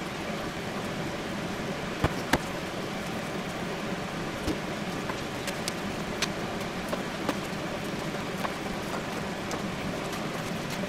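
Hands handling bread, lettuce and paper on a plastic cutting board: a few light taps and sharp clicks over steady background noise.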